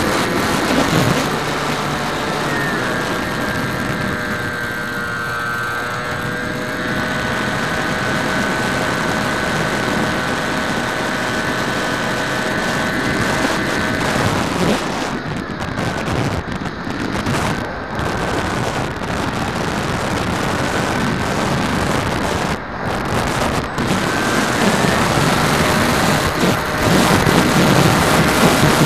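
Bixler 2 foam RC plane's brushless electric pusher motor whining at a steady pitch, heard from an onboard camera under heavy wind rush. About halfway through, the motor whine drops away for several seconds, leaving mostly wind noise, then comes back near the end.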